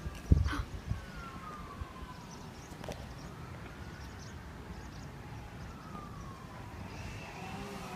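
A siren wailing faintly in the distance, its pitch slowly falling and rising every few seconds. A short low thump, the loudest sound here, comes just after the start.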